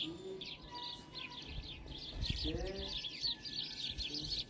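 Many small birds chirping rapidly and without a break, a dense, overlapping chatter.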